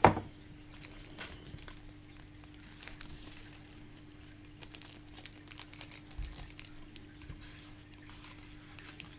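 Plastic piping bag crinkling as it is handled and squeezed, with scattered small rustles and ticks. A sharp knock comes right at the start, the loudest moment, and a faint steady hum runs underneath.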